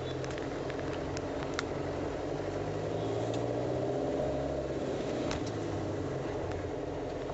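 Car engine and road noise heard from inside the cabin while driving slowly: a steady low hum, with a few faint clicks.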